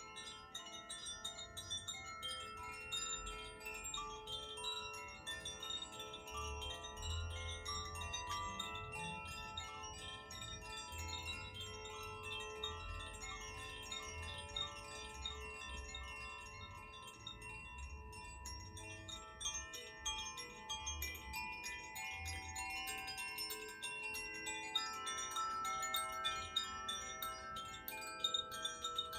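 Tuned Koshi and Zaphir chimes ringing continuously as they are swayed, many small strikes layering overlapping sustained tones.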